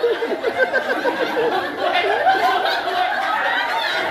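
A group of people laughing, with a quick run of short laughs in the first second and chatter mixed in.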